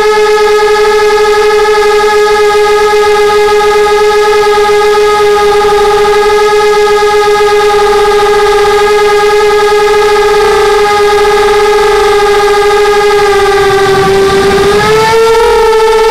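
FPV quadcopter's electric motors and propellers whining loudly at a steady pitch, recorded by its onboard camera. Near the end the pitch dips briefly and climbs back.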